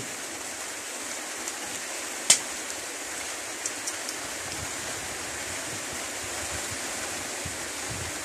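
Steady, even hiss with no speech, with one sharp click about two seconds in and a few faint ticks shortly after.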